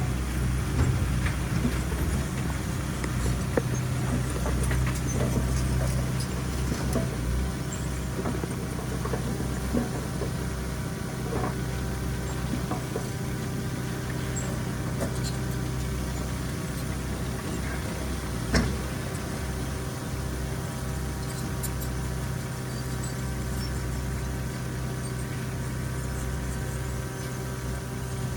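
Heavy earthmoving machinery's diesel engine running steadily with a low drone, with scattered small clicks and one sharp knock about two-thirds of the way through.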